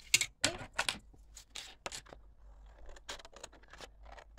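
A sheet of paper handled and cut with scissors: a quick series of short, crisp snips and paper rustles, the loudest in the first second.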